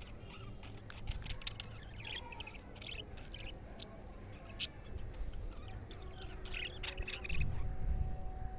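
Budgerigars chirping and chattering in short, scattered calls, with a low rumbling noise about seven seconds in.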